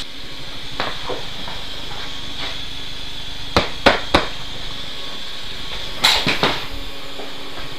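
A few sharp knocks and clicks as a dirt bike seat is set onto the bike. Three come close together about three and a half seconds in and two more follow about six seconds in, over a steady hiss.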